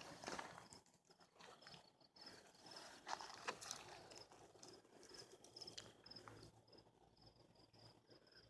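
Faint cricket chirping: an even run of short, high chirps, a few a second. Scattered soft rustles and crackles come through it, the loudest about three seconds in.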